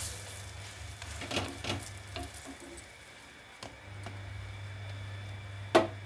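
A wooden spatula knocking and scraping against a flat tawa as a kulcha is pressed and turned, a few separate knocks with the loudest near the end, over faint sizzling of butter on the hot griddle.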